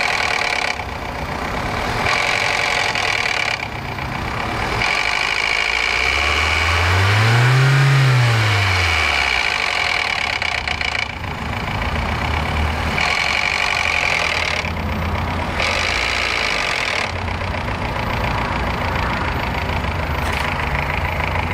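Car engine idling with a knock, revved up once and let back down to idle about seven to nine seconds in.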